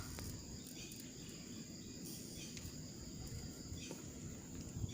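Faint outdoor ambience: a steady, high-pitched insect drone over a low, even rumble.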